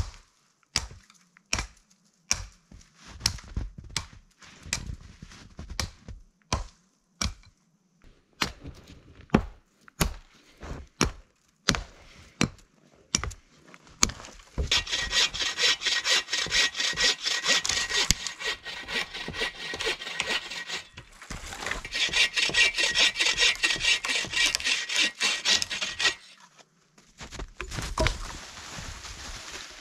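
Axe chopping into a fallen dry spruce, sharp blows about two a second for the first fourteen seconds. Then a folding saw cuts through the dry spruce wood in two long bouts of quick steady strokes, with a short pause between them.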